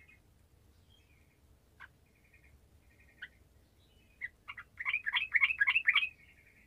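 Sooty-headed bulbul (trucukan) singing: soft chirps and a couple of sharp single notes, then in the second half a loud, quick run of about eight notes lasting just over a second.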